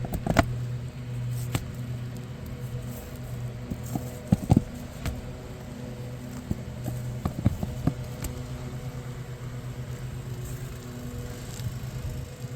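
A few sharp irregular knocks and taps of hand tools working on asphalt shingles, over the steady hum of an engine running.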